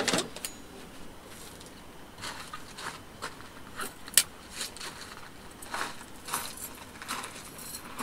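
Folding camp chairs and gear being handled: scattered rustles and light clicks, with a sharp click about four seconds in.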